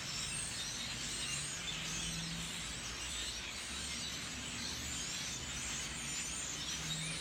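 A large flock of birds calling at once, a dense, steady chatter of many overlapping chirps, over a low hum.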